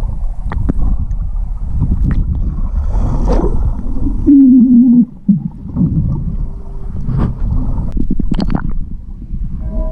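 Swimming in a pool heard through an underwater camera: muffled low rumbling of churned water and bubbles, with scattered clicks. A loud wavering tone sounds for under a second about four seconds in.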